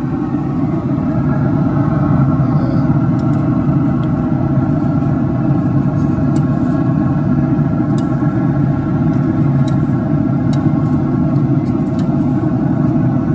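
Steady, loud motor hum with a few light metallic clicks of tongs on the grill grate.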